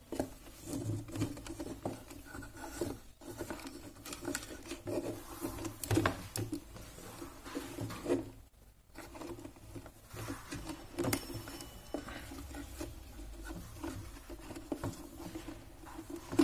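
Hands scratching and rubbing at wires and plastic connectors inside an open wooden subwoofer cabinet. The rustle is continuous, broken by small clicks and a few sharper knocks.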